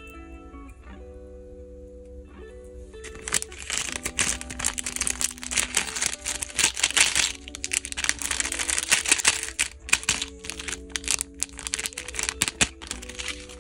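Soft guitar background music; about three seconds in, a small clear plastic bag of earrings starts crinkling loudly and irregularly as it is handled and turned over, continuing over the music.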